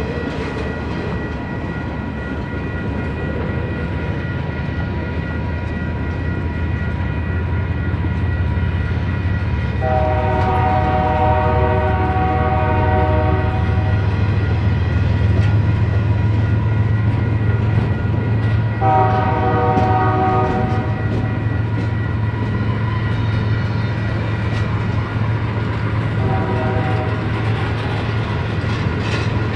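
Double-stack container train's cars rumbling and clattering past on the rails, while a locomotive horn ahead of them sounds two long blasts, a short one, and the start of another long one: the standard grade-crossing signal.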